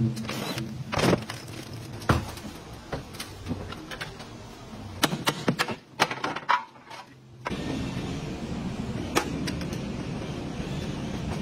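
Hand and power tools working on a crashed car's body: scattered clicks and metal knocks, a quick run of clanks about five to seven seconds in, then a steady rushing noise.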